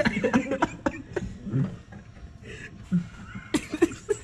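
Men chuckling and laughing briefly, with scattered sharp clicks and knocks of hand tools and parts being handled in a truck's engine bay, a cluster of knocks near the end.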